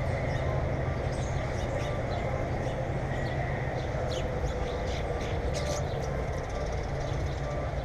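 Steady low rumbling noise throughout, with short high chirps of small birds clustered in the middle seconds.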